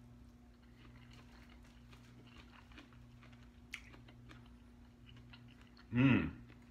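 A person chewing a forkful of warm wilted romaine salad with bacon: faint, scattered soft clicks of chewing over a steady low hum. A brief vocal sound comes near the end.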